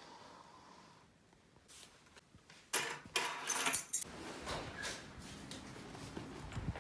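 Rustling and clinking of small objects being handled, starting suddenly about three seconds in, loudest for about a second, then a softer rustle that continues.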